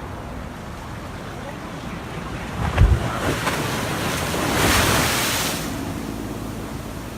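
Storm-driven sea surf breaking on the shore: a steady wash of waves, a heavy thump just under three seconds in, then a wave crashing and rushing up that swells to the loudest point about five seconds in and fades. Wind buffets the microphone throughout.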